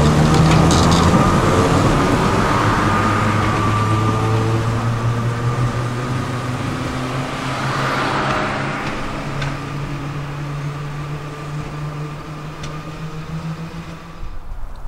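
Historic electric tram running past and away along the track, its traction motors humming with a higher whine over the running rumble. It fades steadily as the tram draws off.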